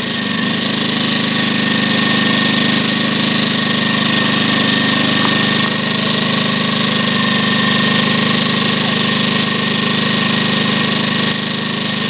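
Champion 73536i 2000W inverter generator's small single-cylinder four-stroke engine running steadily, with a steady high whine above the engine note. The level dips slightly near the end.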